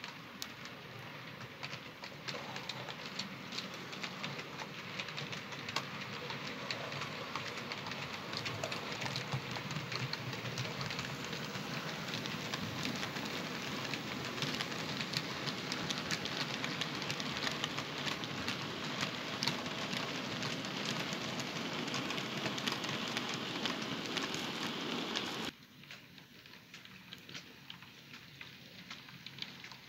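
Hornby Class 60 model locomotive hauling a long train of model wagons along the layout track: a steady crackling rattle of small wheels on rail, full of tiny clicks, that builds over the first few seconds. It cuts off suddenly about 25 seconds in and gives way to a quieter run of the same rattle.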